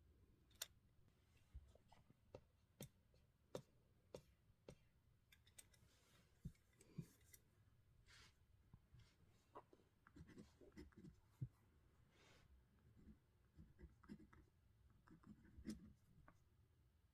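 Faint pen writing on paper, handwriting English text: irregular short scratches and small taps of the pen tip, over a low steady background hum.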